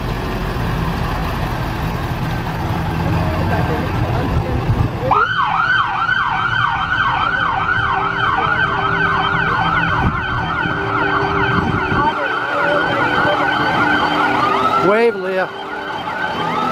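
Fire truck's electronic siren in a fast yelp, about three or four falling sweeps a second, starting about five seconds in over a low engine rumble. Near the end it changes to a slow rising wail.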